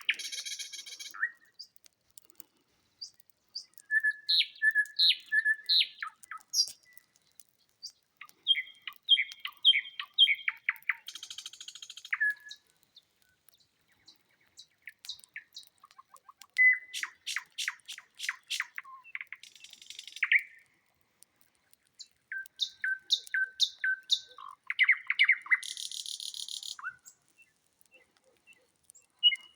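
Nightingale singing loud, varied song phrases separated by pauses of one to three seconds. The phrases mix rapid clicking rattles, buzzy high notes and repeated piping whistles.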